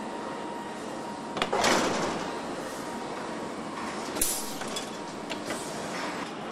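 Car assembly line noise: a steady factory background with a short loud rush of noise about a second and a half in and a sharp metallic clank just after four seconds, with a few lighter knocks from the door-handling tooling.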